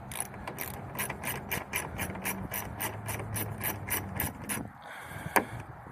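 Ratchet tool clicking steadily, about four to five clicks a second, as the retaining bolt of a Hyundai Sonata exterior door handle is turned. The run stops shortly before the end, and one louder click follows.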